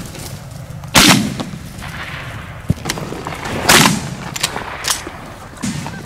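Two loud shotgun blasts about two and a half seconds apart, each trailing off in an echo, with a few fainter sharp pops between them: hunters shooting at mallards flying over the decoys.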